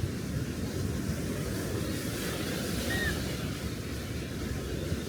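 Small sea waves washing onto the shore in a steady surf wash, with some wind buffeting the microphone.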